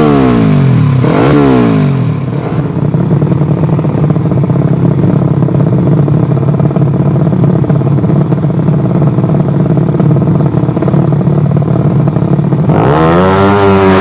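Race-tuned, bored-out underbone motorcycle engine revving in two quick down-and-up blips. It then holds a steady note for about ten seconds and climbs in pitch again near the end.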